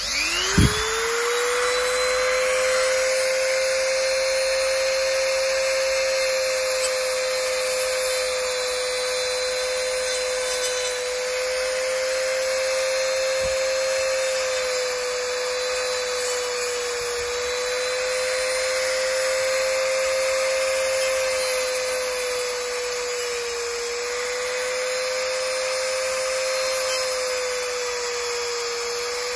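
Handheld Royce Professional rotary tool switched on, spinning up within about half a second to a steady high whine, then cutting with a small toothed blade into the helmet's black foam liner to widen the speaker pocket. The pitch sags slightly now and then as the blade bites.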